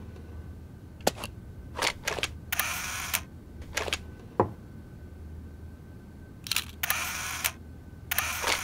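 Mechanical Foley for a Leatherman-style metal multi-tool: a string of sharp clicks and snaps, with three short rasping scrapes among them, about two seconds in, about seven seconds in and near the end, over a faint steady hum.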